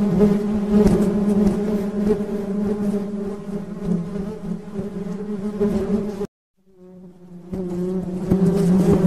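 Honeybees buzzing in a steady drone. The buzz cuts off suddenly about six seconds in and fades back in a second or so later.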